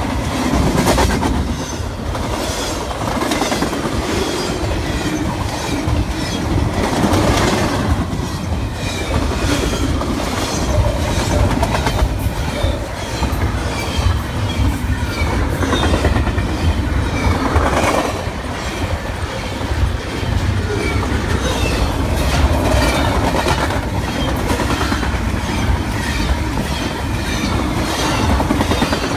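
Double-stack intermodal train's container well cars passing close by at speed: a loud, steady rumble of steel wheels on rail with a fast, regular clickety-clack.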